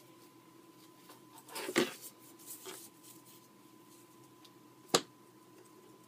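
Nylon paracord rustling and sliding over fingers as it is wrapped around the hand, loudest about two seconds in, then a single sharp click near the end.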